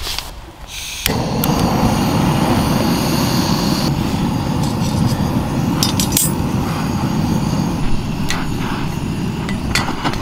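Handheld butane gas torch: a few sharp ignition clicks, then about a second in its flame catches and runs with a steady loud hiss while it is held to thin kindling, with a few sharp clicks from the wood, before it is shut off suddenly near the end.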